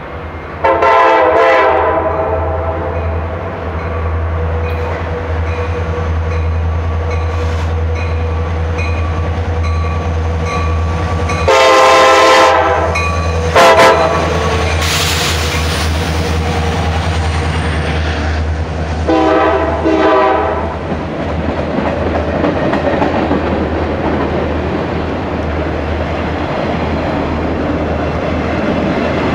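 A pair of EMD SD70AC diesel-electric locomotives running under a steady low engine drone, their multi-chime air horn sounding four times: a long blast, a long and a short blast together about midway, and another long blast, a warning to the track crew in the work zone. Toward the end the rumble and clatter of the freight train's wheels on the rails grow louder.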